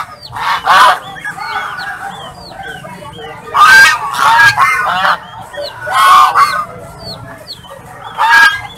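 Waterfowl honking: about five loud, nasal calls spaced a second or more apart, with many short, high, falling peeps in between.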